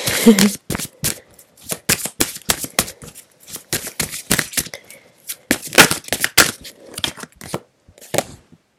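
Tarot cards being shuffled and handled: a run of irregular quick snaps and flicks, thickest about six seconds in, stopping just before the end.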